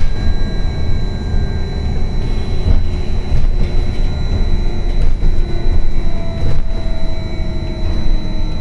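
Škoda 30Tr trolleybus under way, heard from inside the passenger cabin: heavy road and tyre rumble, a steady high whine, and electric traction drive tones that shift slowly in pitch as the speed changes. It is running off-wire on its traction battery (partial traction).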